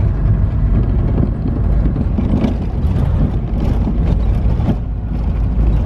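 Car driving on a gravel road: a steady low rumble of engine and tyres on gravel, with a few short knocks and rattles.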